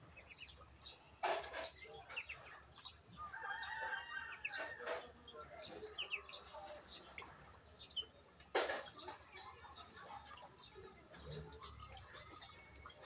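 A rooster crows once, about three seconds in, over scattered small-bird chirps and a steady high-pitched whine. Two sharp knocks stand out: one about a second in, and a louder one past the halfway mark.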